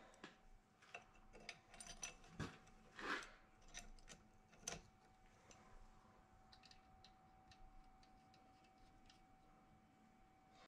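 Faint metal clicks and clinks of a clamp being fitted by hand around a turbocharger's cartridge and turbine housing, busiest in the first five seconds and thinning out after.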